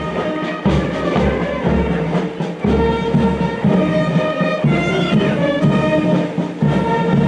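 Music: a melody of held notes over a steady, regular low beat.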